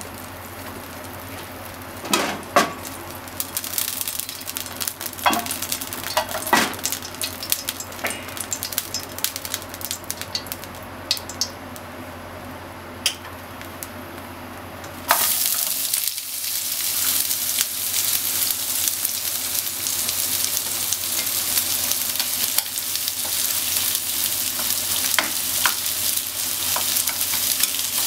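Oil heating in a frying pan, spitting with scattered pops and crackles. About halfway through, sliced onion goes into the hot oil and it breaks into a loud, steady sizzle, stirred with chopsticks.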